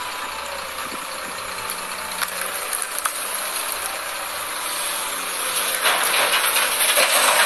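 Heavy machinery working: the diesel engine of a large LiuGong crawler excavator running as it loads a dump truck, a steady noise that grows louder about six seconds in.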